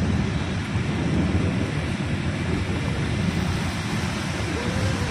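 Heavy rainstorm over a flooded street: a steady rushing hiss of rain and water over an even low rumble.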